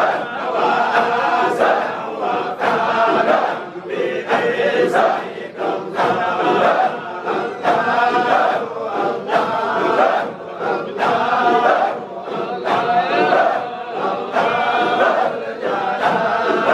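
A large crowd of men chanting dhikr together in unison, in a steady repeating rhythm.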